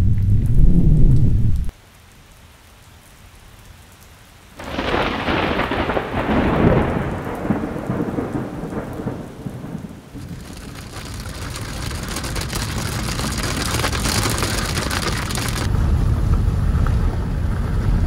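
Thunderstorm: a thunderclap breaks suddenly about four and a half seconds in and rolls away over several seconds. Heavy rain hisses later and cuts off abruptly near the end. A low rumble comes before and after.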